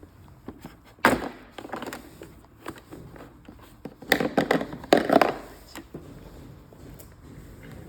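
Clicks and knocks of a power tool's housing and small parts being handled during a switch replacement, with a loud clatter about a second in and a run of louder knocks around four to five seconds in.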